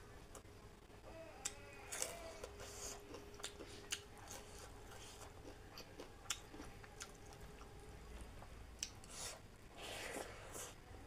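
Close-up eating sounds: chewing and wet mouth smacks as chicken roast and rice, eaten by hand, are chewed, with scattered small clicks from fingers picking at the food on the plate.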